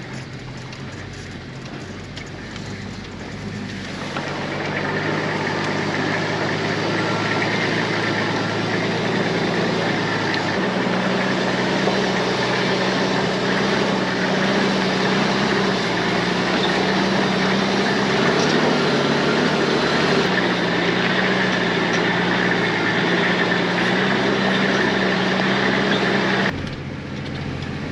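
Nissan Patrol 4WD crawling slowly downhill, its engine running steadily at low revs. It grows louder about four seconds in, shifts slightly in pitch partway through, and drops off suddenly near the end.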